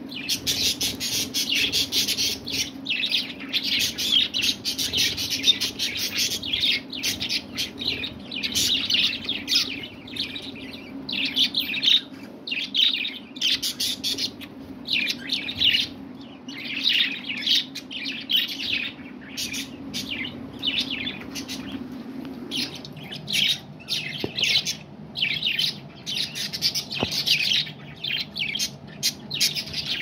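A flock of budgerigars chattering and chirping non-stop in quick, overlapping bursts of high-pitched twittering.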